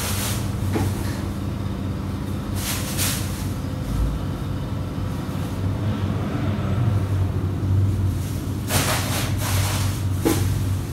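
A steady low mechanical hum, with two brief bursts of handling noise about three seconds in and near nine seconds in.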